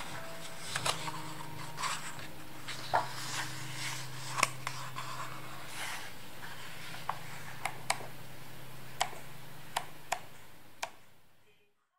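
Book pages being handled and turned: scattered sharp paper clicks and light rustles over a steady low hum, fading out near the end.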